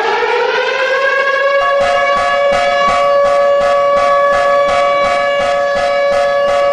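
Civil defense siren winding up to a steady wail. About a second and a half in, a second, higher tone joins it, with an even pulsing about three times a second.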